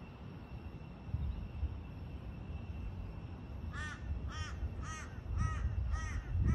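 A crow cawing six times in an even series, about two calls a second, starting a little past halfway. Under it is a low, uneven wind rumble on the microphone.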